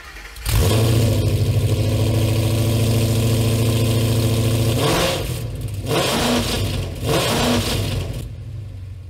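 A combustion engine starts up and settles into a lumpy idle, then is blipped a few times past the middle before dropping back and fading out. It is engine sound laid over the battery-electric Mustang Mach-E, which has no engine, as an April Fool's joke about its new headers and exhaust.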